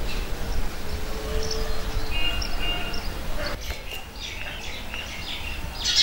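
Birds chirping over steady outdoor background noise with a low rumble; in the second half, a knife knocks repeatedly on a wooden chopping board as shallots are sliced.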